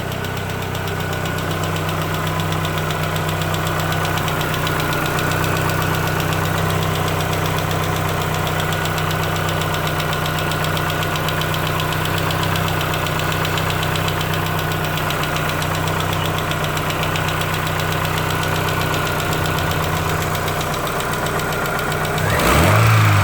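2004 Chevrolet Aveo's four-cylinder engine running at a steady idle with a rhythmic rod knock: a worn, spun connecting-rod bearing, put down to overfilling the oil. Near the end the engine is briefly revved and gets louder.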